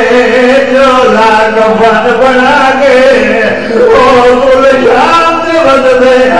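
A man chants a qasida, a devotional elegy, in a solo singing voice, holding long wavering notes. New phrases begin about four and five seconds in.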